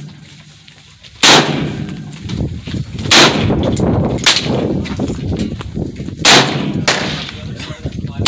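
AR-15 semi-automatic rifle fired in single shots: three loud shots spaced about two to three seconds apart, each with an echoing tail, and two fainter cracks between them.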